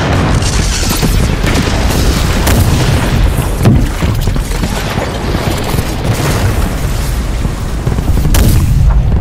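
A designed sound effect: a dense run of booms and blasts over a continuous heavy low rumble, with the strongest hit a little before the middle.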